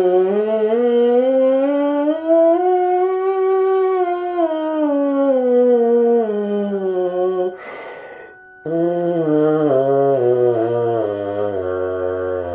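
A bass trombone mouthpiece buzzed on its own, with no horn attached, giving a raw, reedy tone. It climbs a scale step by step and comes back down, stops for a quick breath about eight seconds in, then steps down into the low register.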